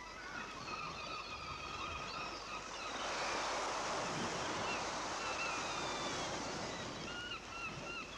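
Seaside waves washing in, swelling louder in the middle, with high wavering calls sounding over the surf throughout.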